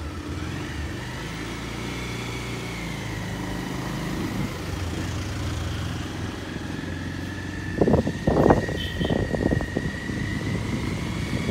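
Motorcycle engine running steadily on the move, heard from the bike itself, with a few louder rushes of noise about eight seconds in.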